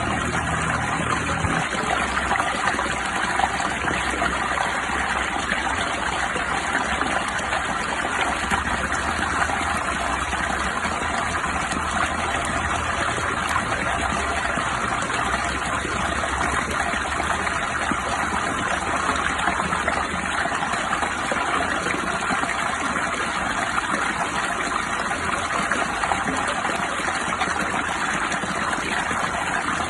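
Steady water noise: an even, unbroken hiss of water, level throughout.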